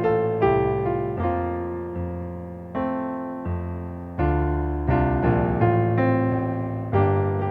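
Solo piano playing slow chords and single notes, each struck and left to fade.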